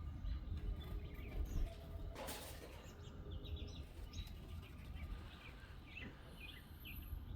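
Small backyard birds chirping with many short, scattered calls over a steady low outdoor rumble, with a brief rustle about two seconds in.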